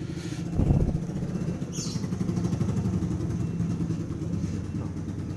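A motorcycle engine idling steadily, with a brief low thump under a second in.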